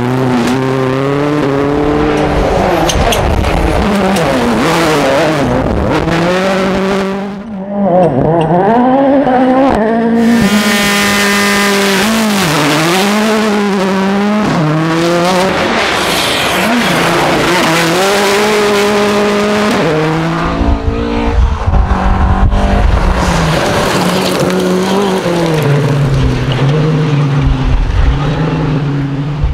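Rally cars driven flat out on gravel, one after another, engines revving up and dropping back through gear changes, with gravel and dust thrown from the tyres.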